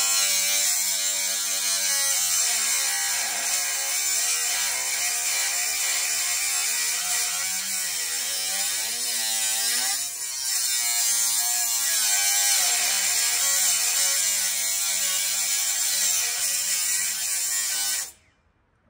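Electric power tool cutting through an exhaust part, likely a clamp, its buzzing motor pitch sagging and recovering as it bites under load. It stops abruptly near the end.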